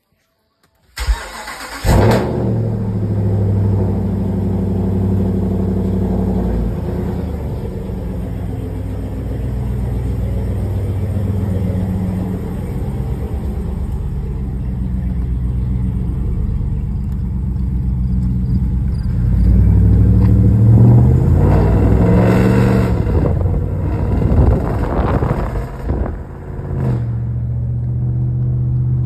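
2019 Ram 1500 with a straight-piped exhaust and no resonators, starting up about a second in and settling into a steady idle. The engine is revved up and back down a few times about two-thirds of the way through, then returns to idle.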